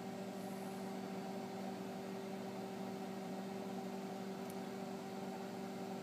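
900-watt microwave oven running at full power: a steady hum with several held tones over a light hiss.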